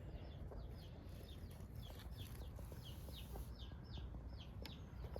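A bird chirping faintly and steadily, a rapid run of short falling chirps at about four a second that fades out near the end.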